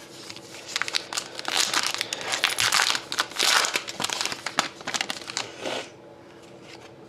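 A hockey card pack's wrapper being torn open and crinkled by hand: a run of dense crackling crinkles and sharp clicks lasting about five seconds, easing off about six seconds in.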